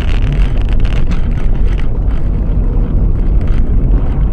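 A car driving on the road, heard from inside the cabin: a loud, steady rumble of engine and road noise, with wind buffeting the microphone.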